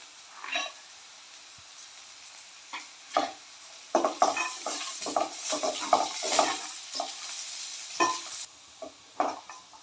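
Peanuts and sliced onions frying in oil and ghee in a steel pan, sizzling softly. About four seconds in, a metal slotted spoon starts scraping and stirring against the steel for several seconds, with a couple more strokes near the end.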